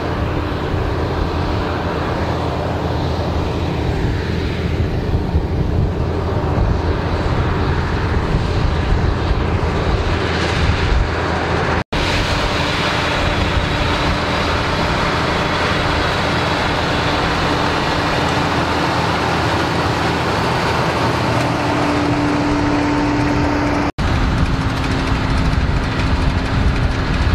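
Fendt Vario 724 tractor's six-cylinder engine running steadily under load as it pulls a front rotary harrow and a potato planter through the soil. The sound drops out for an instant twice.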